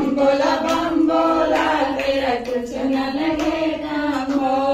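Women singing a devotional Shiva bhajan together, a sustained melodic chant in unison.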